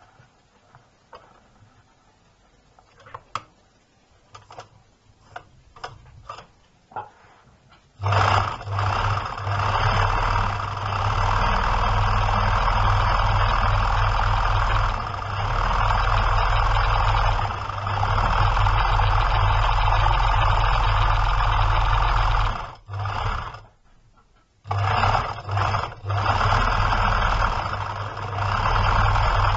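1972 Łucznik KL.441 electric sewing machine sewing through fabric. After a few faint clicks while the cloth is set in place, it starts about eight seconds in and runs steadily, a bit loud with clattering and knocking from its mechanism. It stops for about two seconds near the end, then starts again on a zigzag stitch.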